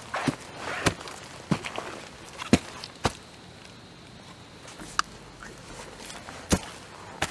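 Footsteps on a forest trail: irregular sharp cracks and crunches of leaf litter and sticks underfoot, about eight in a few seconds.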